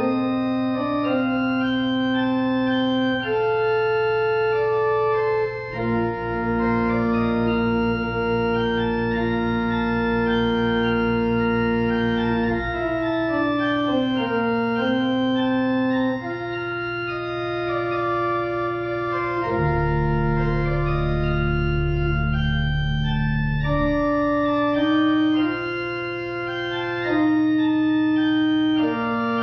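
Church organ playing the postlude: a slow piece of held chords. Deep pedal notes come in about six seconds in and again about twenty seconds in.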